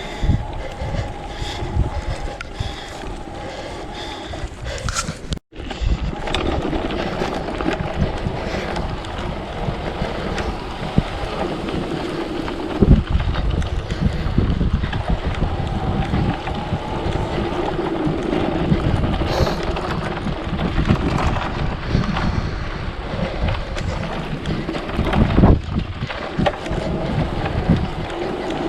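Strong gusty wind buffeting the microphone: a loud, uneven rumble that swells and eases with the gusts. The sound cuts out completely for a moment about five and a half seconds in.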